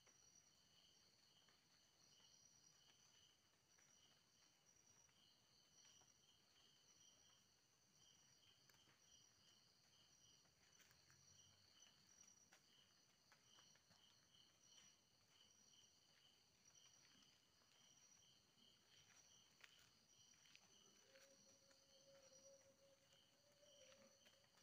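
Near silence with faint crickets and other insects chirping in a steady, pulsing chorus.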